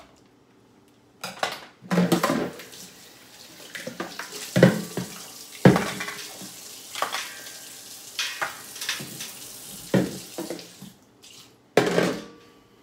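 Kitchen tap running into a sink for several seconds, with a series of sharp knocks and clatters of utensils against the sink.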